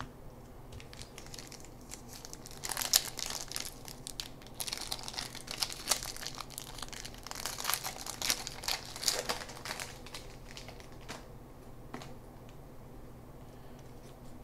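Foil wrapper of a 2006 Topps Opening Day baseball card pack crinkling as it is torn open and peeled off, in a run of crackles and rustles from about three seconds in until about ten seconds in.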